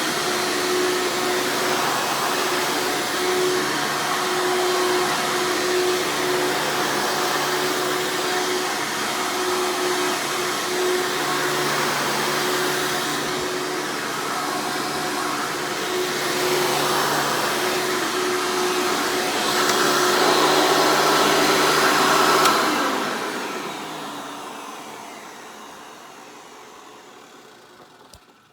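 A 1995 Hoover Encore Supreme U5059-930 upright vacuum running, loud and steady with an even tone over its rush of air. About three-quarters of the way through it is switched off, and the motor spins down and fades away over roughly five seconds.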